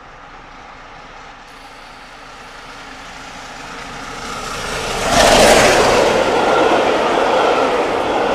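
Steam locomotive 60163 Tornado, an A1 4-6-2 Pacific, running at speed with an express train. It grows steadily louder as it approaches, passes close by about five seconds in, and is followed by the loud, steady rush of its Mk1 coaches running past on the rails.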